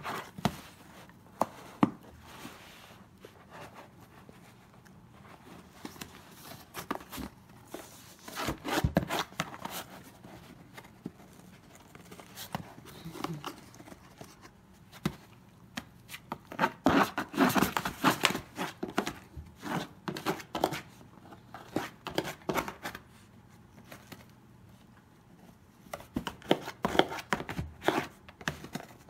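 Shiba Inu scratching at a cardboard box with its claws and gnawing its edge, in bursts of rapid scraping and tearing with quieter pauses between.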